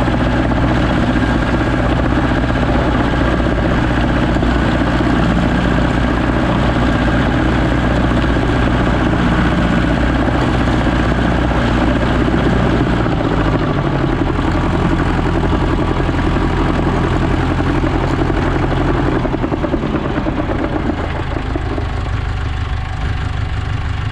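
Landini Trekker 85 crawler tractor's Perkins diesel engine running steadily under load as it pulls a field roller. Its note drops a little past halfway, and it runs quieter in the last few seconds.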